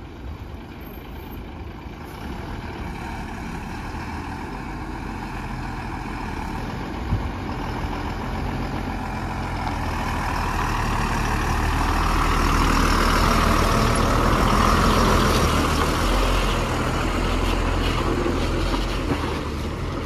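Heavily loaded multi-axle Tata lorry's diesel engine running as it pulls out of the warehouse and drives slowly past, growing louder as it nears and loudest about two-thirds of the way through.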